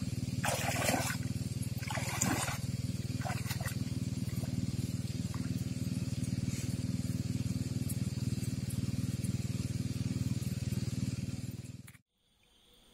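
A motor runs steadily with a low hum, then cuts off suddenly near the end. A couple of brief hissy noises come in the first few seconds.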